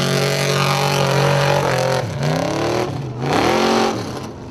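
Formula Offroad modified 4x4 buggy's engine revving hard, held high at first, then dipping and climbing in pitch twice.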